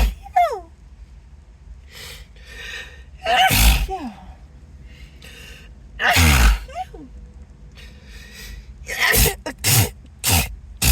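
A person sneezing repeatedly in a sneezing fit: about five loud sneezes, each led in by gasping breaths, the last three in quick succession near the end. The person puts the irritated nose down to an allergy.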